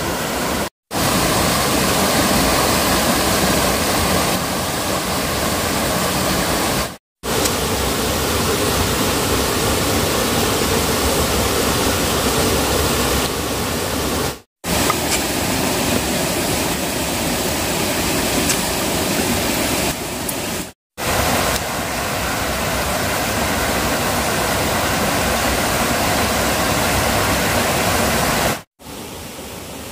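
Stream water rushing steadily, a continuous hiss of flowing water, broken off for a split second about five times.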